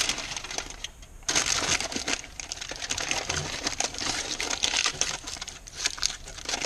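Aluminium foil being crinkled and pressed around a pipe end, an irregular run of crackles and small clicks, with a short pause about a second in.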